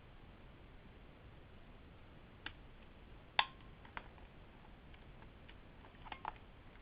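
A few scattered sharp plastic clicks and taps from the netbook's case and battery as the battery is worked loose; the loudest click comes about three and a half seconds in.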